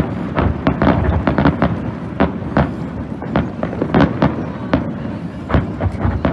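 Fireworks show going off: a rapid barrage of sharp bangs and cracks, several a second, over a continuous low rumble of overlapping bursts.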